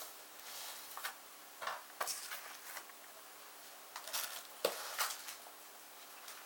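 Sheets in a ring binder, plastic sleeves and paper, rustling and crinkling as they are handled, in short irregular bursts with a few light clicks.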